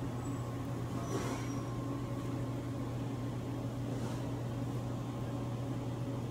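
Steady low hum of commercial kitchen equipment, with faint scrapes of a spatula spreading sauce on bread about a second in and again around four seconds.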